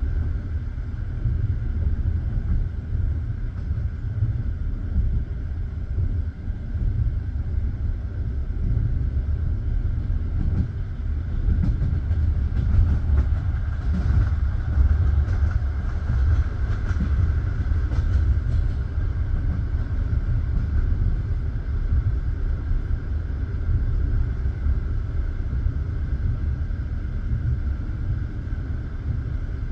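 Passenger train carriage rolling along the track: a steady low rumble of wheels on rail. Through the middle of the stretch it turns sharper, with a run of clicks and a louder higher-pitched rushing.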